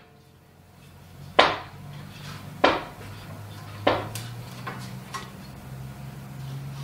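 Metal parts of an Anatol screen printing press knocking and clinking as they are handled during assembly: three sharp knocks about a second apart, then a few lighter clicks. A low steady hum runs underneath.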